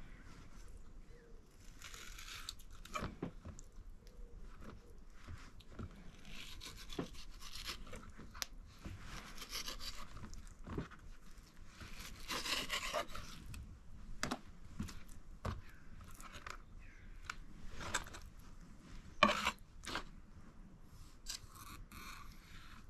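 Food-preparation handling: intermittent scraping and rubbing with scattered clicks, and one sharper knock about three-quarters of the way through.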